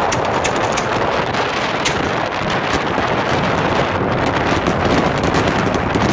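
Strong wind buffeting the microphone throughout, with scattered sharp cracks and pops from 4-inch aerial firework shells launching from their mortars and bursting overhead.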